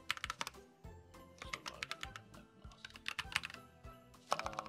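Typing on a mechanical computer keyboard: about four short bursts of key clacks as shell commands are entered, over soft background music.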